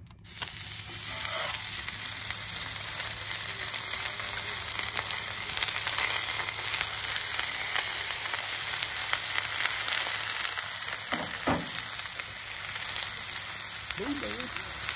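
Thick bone-in steaks sizzling on a hot Blackstone 17-inch propane griddle. The sizzle starts suddenly as the first steak goes down and then holds steady.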